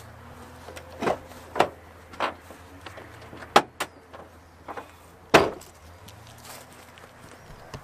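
A few light knocks, then two sharp clunks, from the door and latch hardware of a Toyota Land Cruiser 100 being worked on the way to opening the bonnet.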